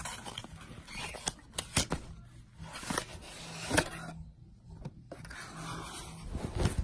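Cologne packaging being handled: scraping and sliding of cardboard with several sharp clicks and knocks.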